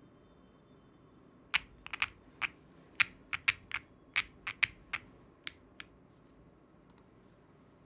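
QwertyKeys QK65 V2 gasket-mount mechanical keyboard with MMD Princess tactile switches, GMK keycaps and an FR4 plate: about fifteen separate keystrokes, unevenly spaced, starting about a second and a half in and running for about four seconds, followed by a couple of faint taps.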